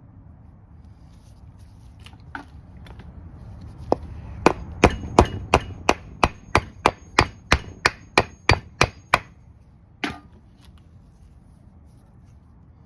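Hammer blows on a block of wood, driving a part into a brake hub: a few light taps, then a steady run of about fifteen sharp strikes at about three a second with a faint metallic ring, and one last blow a second later.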